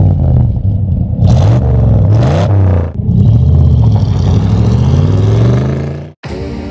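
Old Chevrolet pickup truck's engine revving hard and close, rising and falling twice with short hissing bursts, then pulling away on gravel with the pitch climbing steadily for about three seconds. The sound cuts off suddenly about six seconds in.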